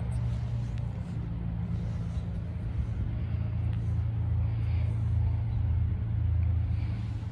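Piston engines of light single-engine propeller aircraft idling: a steady low drone.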